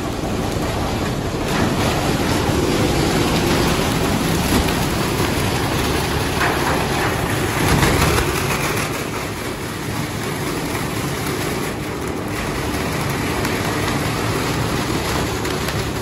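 A 10 hp plastic dust cleaner machine running: a belt-driven rotating drum powered by an electric motor, making a steady loud whirring noise with a faint hum, as loose plastic bags are churned through it. It grows louder for a moment around the middle as an armful of plastic goes in.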